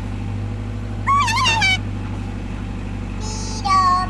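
A steady low hum from a small motor, with two high, wavering squeals over it: one about a second in and another near the end.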